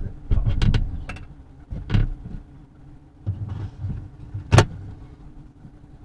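Knocks and bumps on the wooden hive box, a few sharp clicks with low thuds, the loudest single knock about four and a half seconds in, over a faint steady low hum.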